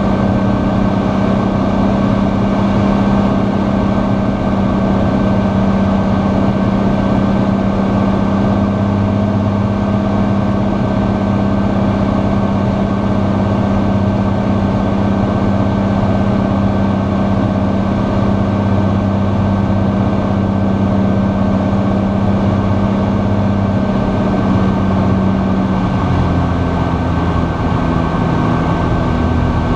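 Cirrus SR20's six-cylinder Continental piston engine and propeller droning steadily at reduced power, heard inside the cockpit on final approach. About 26 seconds in the drone changes pitch and a deeper rumble comes in as the plane flares and reaches the runway.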